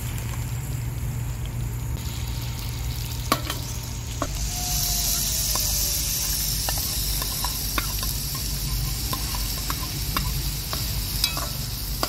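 Hot oil sizzling in a pot, with scattered clicks of a metal skimmer against the pan as fried chicken pieces are lifted out. About four seconds in, the hiss grows louder and brighter as diced carrots fry in the oil.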